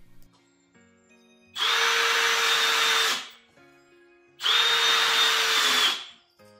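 Cordless drill-driver on its low speed gear driving 3.5x16 mm wood screws with a PZ2 bit through hinge plates into cabinet doors: two runs of steady motor whine, about a second and a half each, one per screw.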